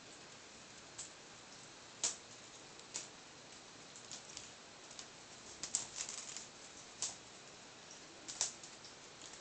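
Sharp, irregular clicks and taps of a kitten's claws and paws and a pom-pom toy on a ceramic tile floor as the kitten pounces on and bats the toy. The taps come roughly once a second, with a quick flurry of them just past the middle.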